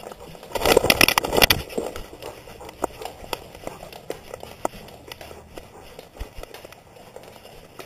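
Handling noise of a GoPro strapped to a dog: a loud burst of scuffing and rubbing about half a second in, then scattered clicks and taps as the dog moves about with the camera on it.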